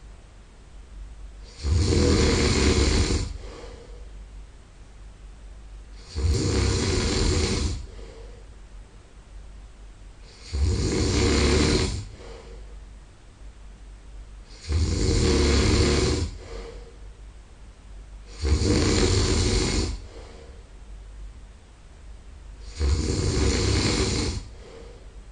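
A man snoring in his sleep: six loud snores at an even pace, about one every four seconds, each lasting about a second and a half, with much softer breathing in between.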